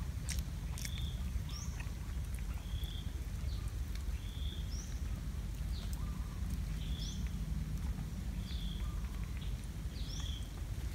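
A bird calling over and over: short, high, level notes alternating with quick upward-sliding notes, about one a second, over a steady low rumble.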